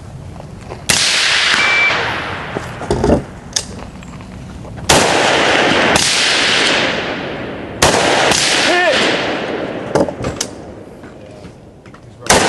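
Four rifle shots, each a sharp crack followed by a long fading echo, spaced about three to four seconds apart.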